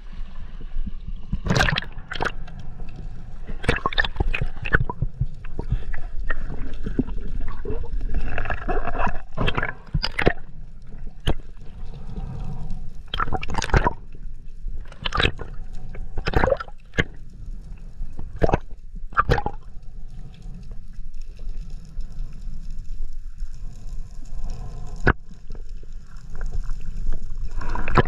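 Water sloshing and gurgling around a camera in a waterproof housing as a snorkeler goes from the surface to underwater, with a steady low rumble and many sharp clicks and pops.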